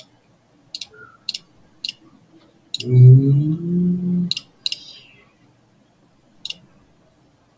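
Computer mouse clicking: single sharp clicks, about eight of them, spaced irregularly up to a second or more apart. In the middle a person hums for about a second and a half, which is the loudest sound.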